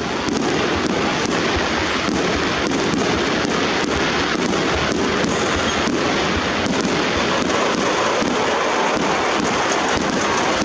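Starmine barrage of aerial firework shells bursting in quick succession: a continuous rumble of bursts with frequent sharp reports, several a second.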